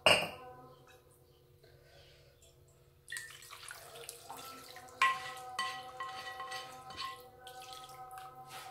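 Thick curry gravy being poured from a pan into a clay pot over fish pieces, with wet, dripping sloshing and a spatula scraping the pan. There is a knock at the very start, and the pouring picks up about three seconds in.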